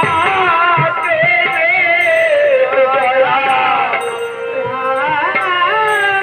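Male voice singing a long, ornamented melodic line of Ramayan gaan, Bengali devotional narrative folk song. The pitch slides and wavers, sinking over the first few seconds and climbing again near the end.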